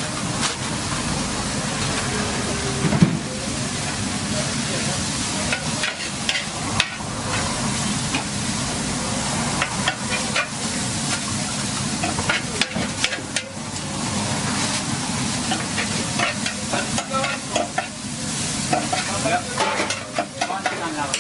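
Food sizzling as it fries in a hot pan, stirred continuously, with frequent irregular clicks and scrapes of a metal utensil against the pan.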